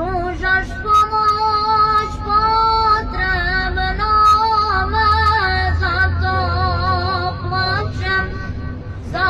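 Ilahija, a Bosnian Islamic devotional song: a high, ornamented sung melody over a low steady drone.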